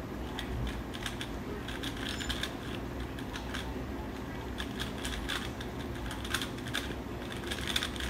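A 3x3 speedcube being turned fast by hand during a timed solve: rapid plastic clicking in quick runs of moves, with short pauses between runs.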